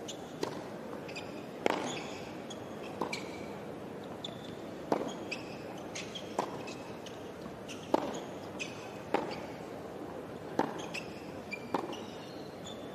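Tennis rally on a hard court: sharp racket-on-ball strikes about every second and a half, with short sneaker squeaks on the court between shots.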